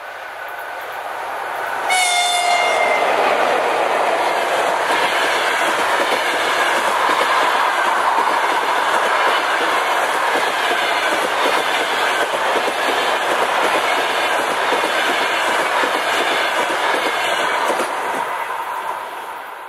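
An EP1M electric locomotive and its long express passenger train pass close by at speed. About two seconds in, as the locomotive goes by, a brief horn sounds with its pitch sagging slightly. The carriages then run past in a steady loud rumble with the clickety-clack of wheels on rail joints, which fades near the end as the train clears.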